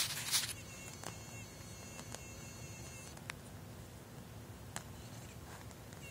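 Handling noise: a brief rustle at the start, then a few faint scattered clicks over a faint steady high-pitched whine.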